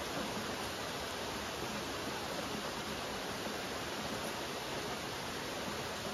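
Steady rain: an even, unbroken hiss of many drops, with no single drops or thunder standing out.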